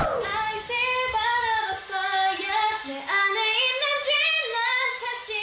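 Young female voices singing a pop song, the vocal lines running on continuously with no breaks between parts.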